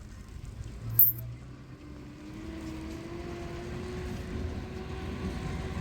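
An engine running steadily, its pitch slowly rising, with a sharp click about a second in.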